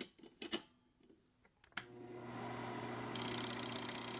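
A few light clicks, then a sharp click about two seconds in as a small motorised machine starts up with a steady hum. About a second later a rapid, even mechanical ticking joins the hum and keeps going.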